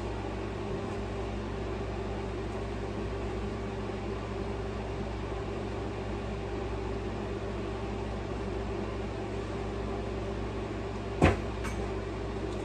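A steady machine hum holding a few fixed tones, like a household appliance or fan running, with a single sharp knock near the end.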